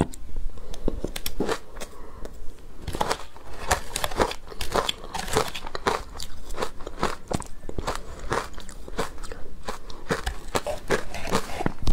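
Close-miked crunching and chewing of ice dusted with matcha powder: a dense, continuous run of sharp, crisp crunches as the icy mouthfuls are bitten and ground.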